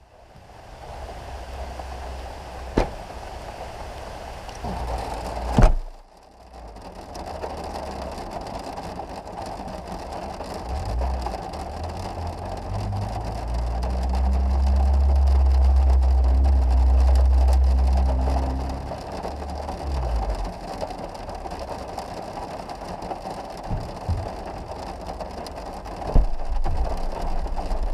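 Rain falling steadily in a forest as a storm comes in, with a few sharp knocks early on and a long low rumble that swells and dies away through the middle.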